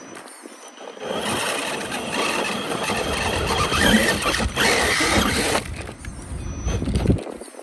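Axial Ryft RC rock bouncer's electric motor and geared drivetrain running under throttle as it drives. The noise starts about a second in and stops shortly before the end.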